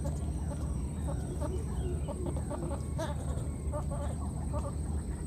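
Chickens clucking in many short notes, over a steady low rumble and a thin steady high-pitched whine.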